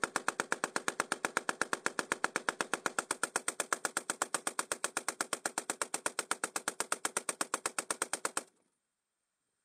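Soviet Maxim heavy machine gun firing one long burst, an even stream of about ten shots a second, which cuts off suddenly near the end.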